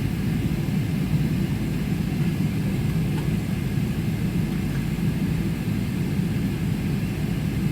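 Boeing 777-300ER's GE90-115B turbofan engines at takeoff thrust, heard from inside the passenger cabin as a steady, low-pitched noise.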